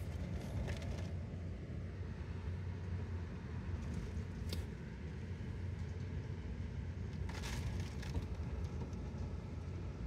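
Hurricane wind and rain heard through a window pane: a steady low rumble of wind, with a couple of brief spatters of rain about halfway through and again later.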